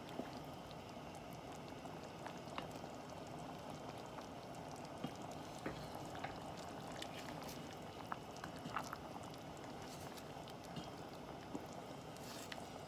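Rice simmering in broth in a stainless steel saucepan, a faint steady bubbling with scattered small clicks, as a wooden spoon stirs it. The rice is being cooked until the water is absorbed.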